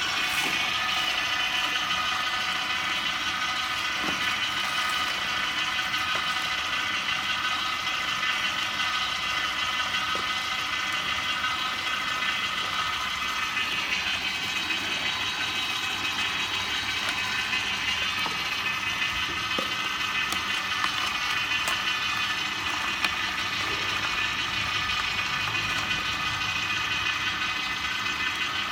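Slow (masticating) juicer running steadily as it presses carrots and celery: an even motor-and-gear whine made of several fixed tones, with no change in speed.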